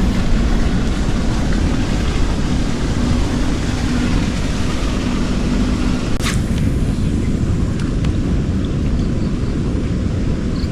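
Wind rumbling on the microphone over a steady low engine hum. The hum fades about six seconds in, just as a single sharp click sounds.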